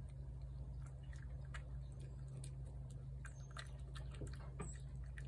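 Cat chewing wet cat food from a plate: soft, irregular wet clicks over a steady low hum.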